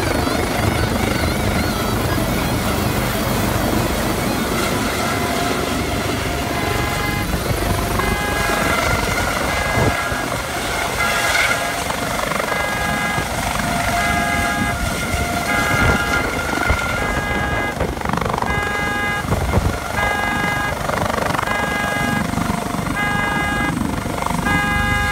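Medical helicopter's rotor noise as it comes in low to land. About a quarter of the way in, a car alarm it has set off starts beeping in a steady repeating pattern, about two pulses a second, over the rotor noise.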